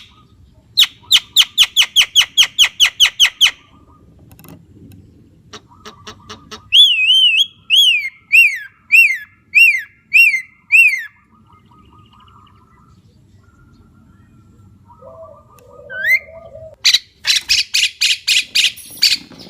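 Javan myna calling: first a quick run of about ten sharp, harsh notes, then a series of about eight clear whistled notes that each slide downward, and harsh rapid chattering near the end.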